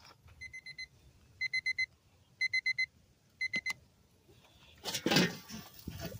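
Electronic timer alarm beeping in quick groups of four, about one group a second, one high steady pitch. About five seconds in, a brief louder rustling noise takes over.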